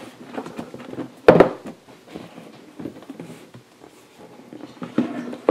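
A cardboard box being handled and opened one-handed: scattered light taps and scrapes, with one sharp knock about a second in.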